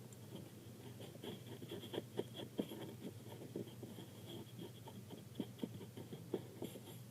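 Short, irregular scratching strokes of a drawing tool on paper as a squishy is coloured in.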